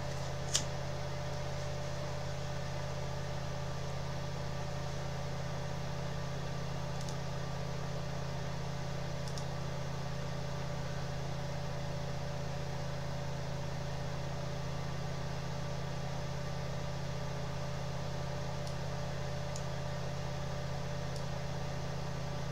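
Steady low electrical hum with even background hiss and a faint steady tone. One sharp click comes about half a second in, and a few fainter clicks follow later.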